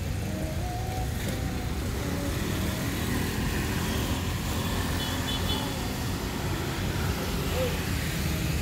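Street traffic on a wet city road: cars and motorbikes passing with a steady rumble, with faint voices in the background.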